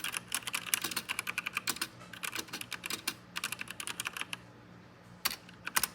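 Typing on a Royal Kludge RK987 mechanical keyboard with stock brown tactile switches: a fast run of key clicks that stops a little after four seconds in, followed by a few single keystrokes near the end.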